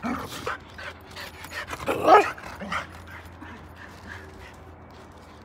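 Two dogs, a border collie and a small cream-coloured dog, play-fighting with a quick run of yips and barks; the loudest, a sharp yelp, comes about two seconds in, after which the sounds thin out and fade.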